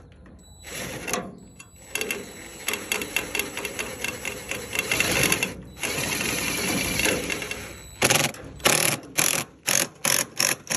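DeWalt cordless driver running under load as it drives screws through a metal downspout strap into the house wall, with a fast rattle for several seconds, then a steadier run, then several short bursts near the end as the screw is seated.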